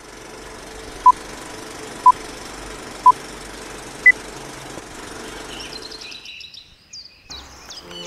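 Four short electronic beeps about a second apart, three at one pitch and the fourth higher, like a countdown, over a steady hiss. From about six seconds in, small birds chirp quickly and repeatedly.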